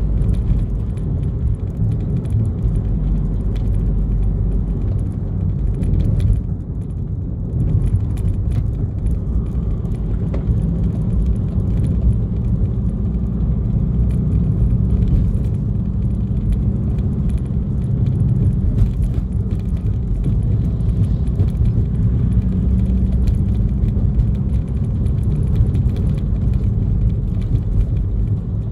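A moving vehicle's engine and road noise: a steady low rumble with light rattles and clicks throughout, dipping briefly about six and a half seconds in.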